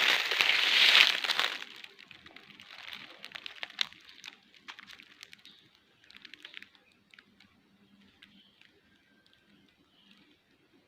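Footsteps through dry leaves and undergrowth on a forest path: loud rustling and crunching for the first second and a half, then scattered twig cracks and leaf crunches that thin out after about seven seconds.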